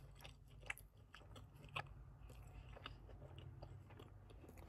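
Faint close-up chewing of a mouthful of sauced fried chicken: soft wet clicks and crunches, with two sharper ones just under a second in and near two seconds in.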